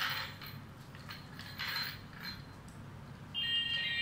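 Electronic toy ball being twisted by hand, its plastic parts clicking and ratcheting in irregular bursts. About three seconds in, the toy's electronic tune starts up.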